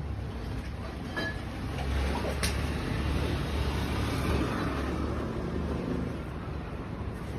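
Motorcycle engine running with a steady low throb that swells a little louder between about two and four and a half seconds in, with a brief click near the middle.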